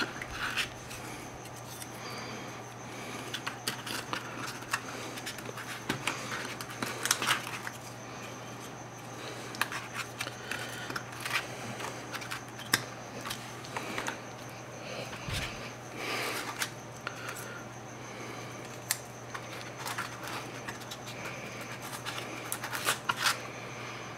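Handling noise: scattered small clicks and rubbing sounds, irregular and close, over a steady low electrical hum and a faint high whine.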